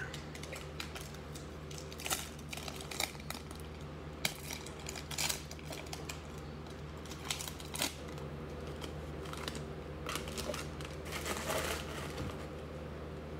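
Foil wrapper of a trading-card pack crinkling and tearing as it is opened, in scattered sharp crackles, with a denser run of crackling and rustling near the end as the cards are pulled out.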